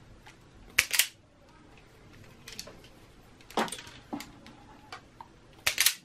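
Sharp clicks and snaps of a hand wire stripper cutting and stripping insulation from the wires of a power cord, in several separate strokes, with a quick double snap about a second in and another near the end.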